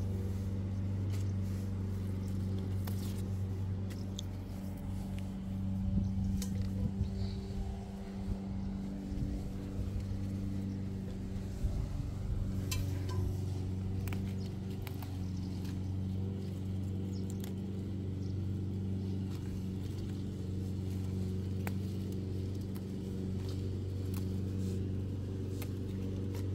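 Steady low machine hum at a constant pitch, like an engine or motor running without change. Scattered small snaps and rustles come from chili plant leaves being picked and handled.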